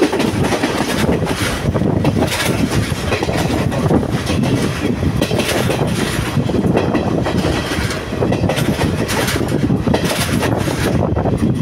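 Sri Lanka Railways diesel multiple-unit train running at speed, heard from its open doorway: a steady rumble of wheels on rails with irregular clacks over the rail joints.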